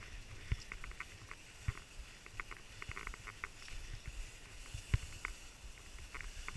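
Ski-touring skis and poles in stride on soft spring snow: irregular light clicks and ticks with a few dull knocks, the loudest about five seconds in.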